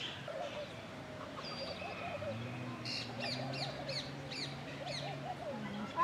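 Mixed bird calls: a run of about six quick, falling chirps from about three seconds in, over lower, wavering calls from other birds.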